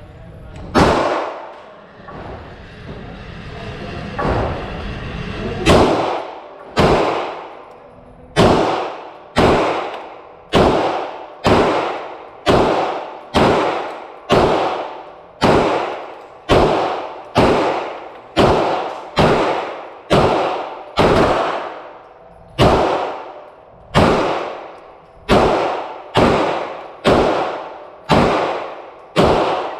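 9mm semi-automatic pistols, a Glock 34 and a Beretta 92FS, being fired: a single shot, a pause of about five seconds, then a steady string of shots about one a second, each with a ringing echo tail.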